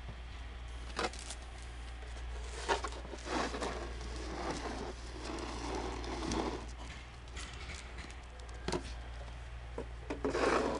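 Golden retrievers nosing and pawing through snow: scattered short scuffs and snuffles over a steady low hum, the loudest cluster near the end.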